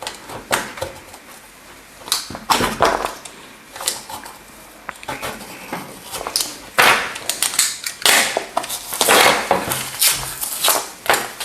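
Glued paper and cardboard being torn and crackling as a circuit board is pried off it, in irregular bursts of ripping and scraping, loudest about two-thirds of the way in.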